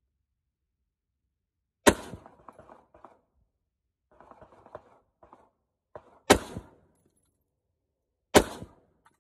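Three single shots from a Smith & Wesson M&P15X AR-15 rifle in 5.56 fitted with a Tacfire tank-style muzzle brake/compensator. Each is a sharp crack that trails off in a short echo. The first comes about two seconds in, the second about four seconds later, and the third about two seconds after that, with fainter rattling between the first two shots.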